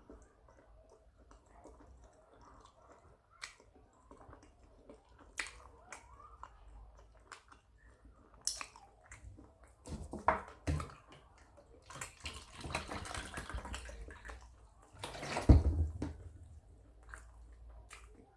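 A person eating close to the microphone: chewing with wet mouth clicks and smacks, and a louder burst of noise about fifteen seconds in.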